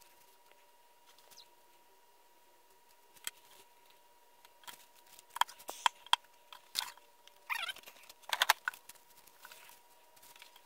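Scattered clicks and light knocks of tools and a paper pattern being handled and set down on a wooden workbench, busiest in the middle and again near the end, with a short rustle of paper a little past the middle.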